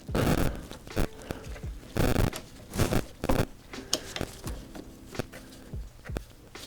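Hand-tool work on a diverter valve's hose clamp: a series of short scraping, clicking bursts, about one a second, as the clamp is loosened with a nut driver and worked against the rubber hose.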